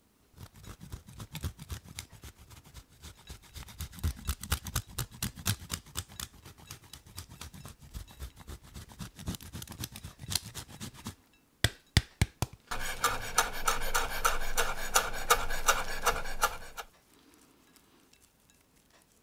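Parmesan cheese being grated by hand on a grater, a fast run of rasping strokes for about eleven seconds. Then come a few sharp clicks and about four seconds of a louder, steadier grinding rasp.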